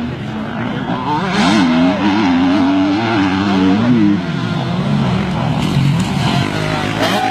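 KTM 150 two-stroke motocross bike engine revving, its pitch jumping up and down in quick throttle blips, then running lower and steadier toward the end.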